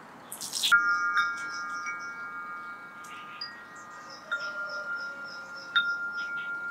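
Metal wind chime ringing: a short rush of noise just under a second in sets off several chime tones together that ring on for seconds, with fresh strikes about four and six seconds in.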